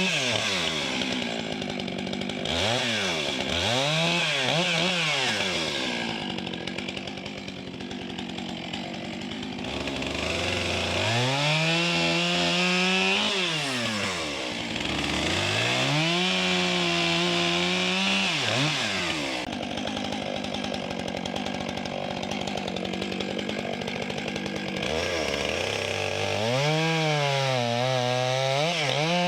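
Stihl MS 661 two-stroke chainsaw with its stock muffler, bucking pine into rounds. It is revved several times in quick succession, then goes through three longer cuts, rising to full throttle, holding there through the wood and dropping back between cuts.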